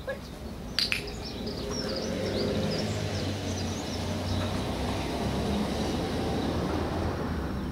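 Low, steady rumble of distant traffic that swells after a second or so and eases near the end, with small birds chirping over it in the first half. One sharp click about a second in.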